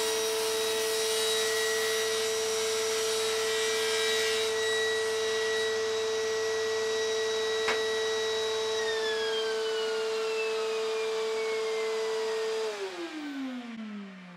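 Table saw running with a steady whine while it cuts a pine block in the first few seconds, with a single click about eight seconds in. A higher tone begins dropping about nine seconds in. Near the end the motor is switched off and winds down, its pitch falling steadily.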